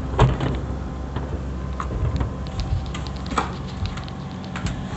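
A steady low machine hum with a scatter of light clicks and ticks.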